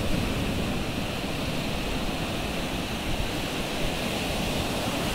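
Ocean surf breaking and washing up over a sandy shore: a steady rush of wave noise.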